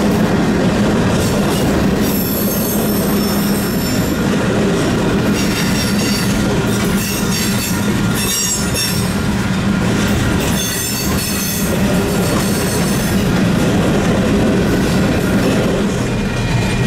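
Freight cars rolling past close by: a steady rumble of steel wheels on rail, with high-pitched wheel squeal coming and going in several stretches.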